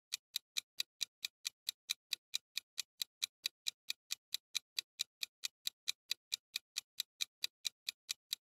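Clock-tick sound effect for a countdown timer: sharp, evenly spaced ticks, about three a second.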